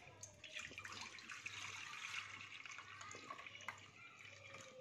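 Jaggery syrup poured from a steel pot through a plastic strainer into a steel bowl: a faint, steady trickling and splashing that thins out near the end, with a few light clicks.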